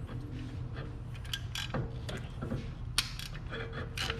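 Light metallic clicks and taps from handling a brake caliper and its slider pins while greasing them, the sharpest click about three seconds in, over a steady low hum.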